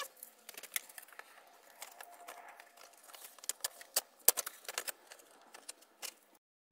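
Scattered light metallic clicks and taps as a stainless steel clamp band is fitted around the seam of a DE pool filter tank's dome and body, with one sharper tap about four seconds in.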